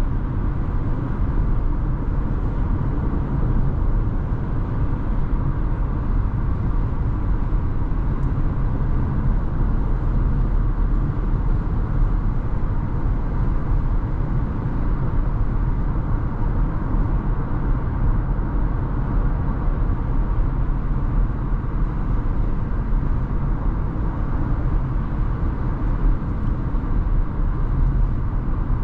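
Steady low rumble of a 2022 Hyundai Tucson SEL AWD being driven: even road and tyre noise with wind, no changes or sudden sounds.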